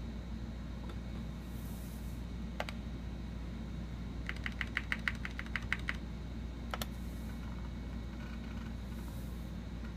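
Keystrokes on an AT&T Unix PC keyboard: one click, then a quick run of about a dozen clicks as the selection steps down a menu, then another click, over the steady low hum of the running computer.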